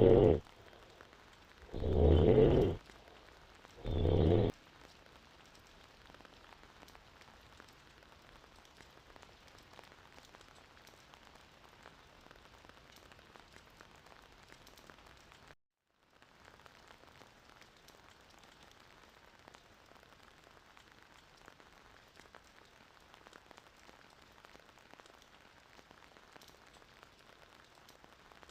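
A woman snoring in deep sleep: three loud snores in the first few seconds, about two seconds apart. After them there is only a faint steady hiss, which cuts out completely for a moment about halfway through.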